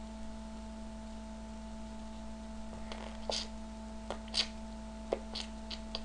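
Steady electrical hum with a few fixed tones. From about halfway in, a string of separate computer keyboard keystrokes as a line of code is typed.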